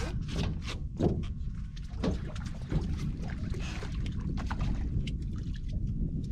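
Water splashing and slapping at the boat's side in short, sharp strikes, over a steady low rumble.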